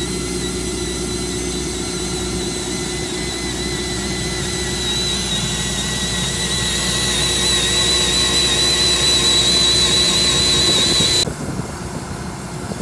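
Plumettaz MiniJet cable-jetting machine at work, compressed air hissing through it with a steady high whistle over a lower hum while it drives fiber cable into the duct. The sound grows louder past the middle and cuts off abruptly about eleven seconds in.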